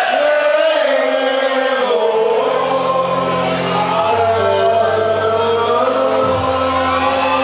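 A slow song with many voices singing together over long held bass notes.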